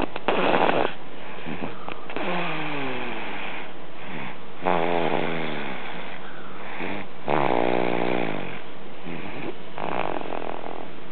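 A nine-month-old baby snoring: about four buzzy snores, one roughly every two and a half seconds, several of them falling in pitch.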